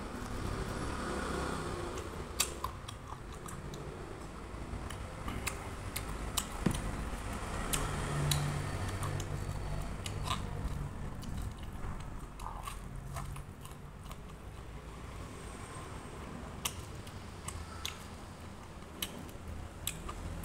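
Corn on the cob being bitten and chewed: scattered crisp clicks and crunches as the kernels come off the cob, over a steady low hum.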